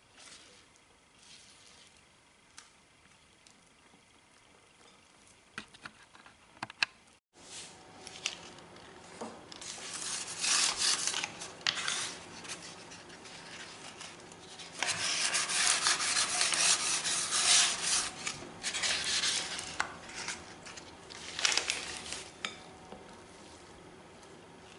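A buttered paper towel rubbed around the inside of a baking pan, in several loud rustling bursts. Before that, a spatula folds thick chocolate batter in a glass bowl, faintly.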